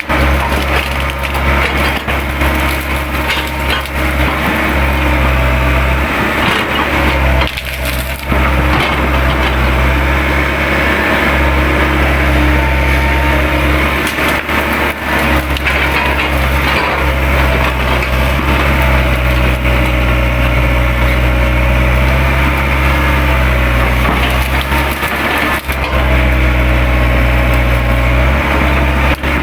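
Hydraulic excavator's diesel engine running steadily under load while woody brush and branches crack and splinter as the machine tears through the undergrowth.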